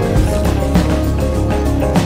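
Background music with a steady beat and held pitched notes.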